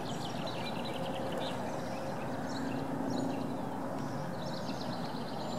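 Small birds chirping and trilling in quick runs over a steady low hiss.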